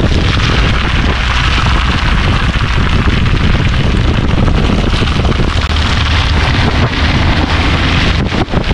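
Wind buffeting a camera mounted on the outside of a moving car, a loud steady rumble and hiss mixed with tyre noise from the wet, slushy road, dipping briefly near the end.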